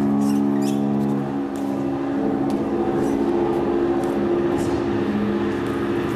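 A steady drone of several held low tones from the performance soundtrack, shifting in pitch about one and a half and two seconds in, with faint scattered clicks above it.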